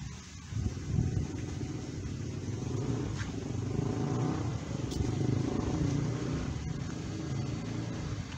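A motor vehicle's engine passing on the street, its low hum swelling toward the middle and then fading.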